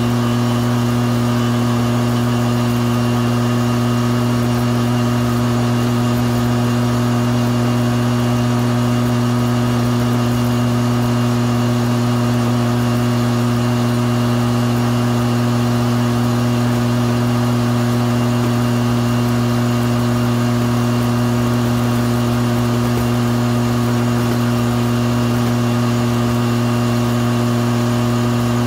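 Riding lawn mower engine running at a steady speed while mowing, a constant unchanging drone.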